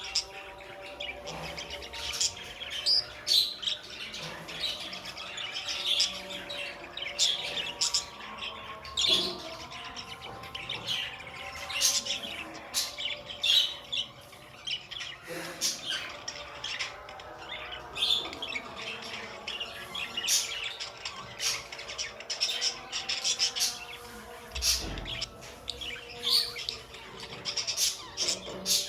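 Pet budgerigars chirping: many short, high chirps in quick succession.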